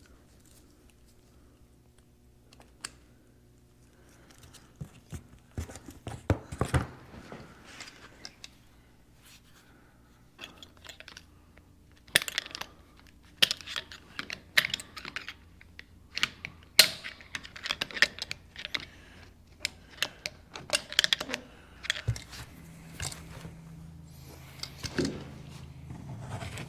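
Metal tools and parts clicking and clinking as a diesel injection pump is worked apart by hand, in irregular sharp taps that come thicker in the second half.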